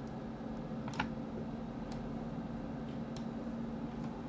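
A few short clicks from a computer's input devices, the one about a second in the loudest and two fainter ones later, over a steady low hum.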